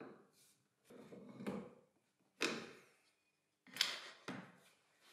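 Bench vise and its magnetic jaw protectors being handled: a knock, a longer sliding scrape about a second in, then a few sharp knocks and metallic clinks as a protector is pulled off the jaw, the brightest clink about four seconds in.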